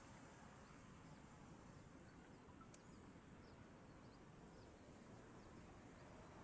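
Near silence: faint outdoor ambience with a few faint, short high chirps and a single sharp click a little under halfway through.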